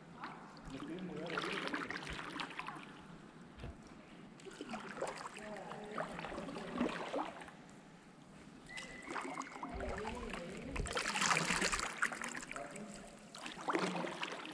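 Kayak paddles dipping and pulling through the water, with a swell of splashing every couple of seconds.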